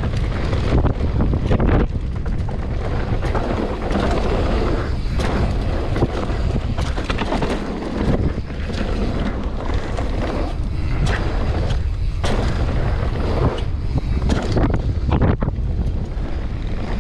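Mountain bike descending a dirt trail: tyres rumbling over the ground and wind buffeting the action camera's microphone, with frequent sharp knocks and rattles from the bike over bumps and roots.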